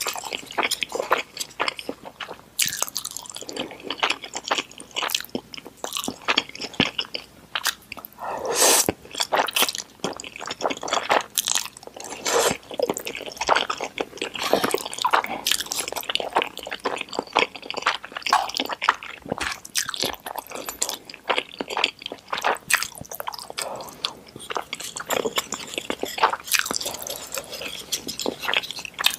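Close-miked eating sounds of noodles: wet, squishy chewing and biting with many irregular small clicks and smacks, and a longer drawn-out sound about nine seconds in.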